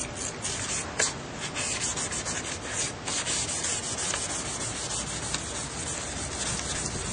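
Sandpaper being rubbed across a cloudy, scored plastic headlight lens in rapid repeated strokes, taking off the hazed surface.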